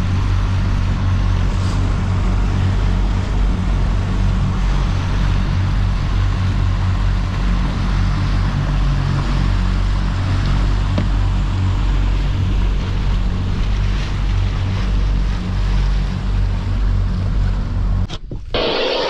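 Twin Honda outboard motors running steadily under way, with the rush of water from the wake and wind on the microphone. About a second before the end the engine sound drops away suddenly to quieter wind noise.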